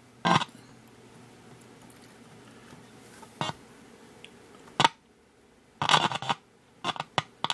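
Zenith K421W radio's speaker cutting in and out in short crackly bursts, with a low steady hum in between, while its stiff volume control is worked.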